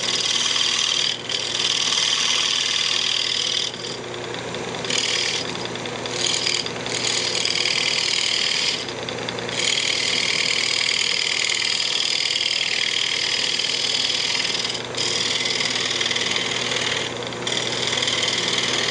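Gouge cutting a spinning maple blank on a wood lathe, rounding over its edge: a steady hiss of shavings over the lathe motor's hum. The cutting hiss breaks off briefly several times as the tool lifts from the wood.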